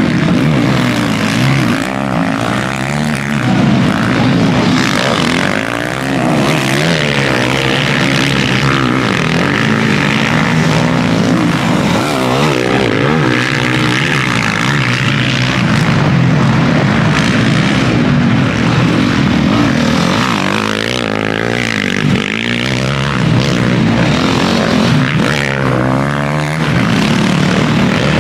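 Several motocross bikes racing, their engines revving up and down in overlapping rising and falling whines.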